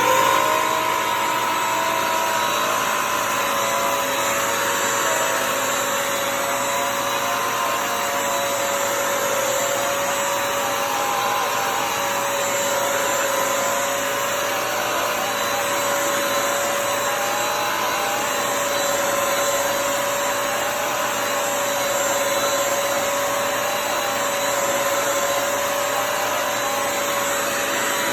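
Bissell CrossWave Pet Pro wet-dry vacuum running, its motor spinning up at the start and then holding a loud, steady whine.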